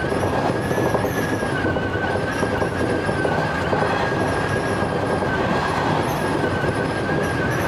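Sanyo Electric Railway electric multiple unit running, heard from inside the car: a steady rumble of wheels on rail with a constant high whine and fainter wavering squeals above it.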